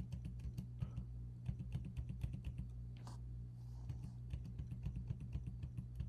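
Computer keyboard keys tapped quickly and repeatedly, several soft clicks a second at an uneven pace, as images are stepped through frame by frame, over a steady low electrical hum.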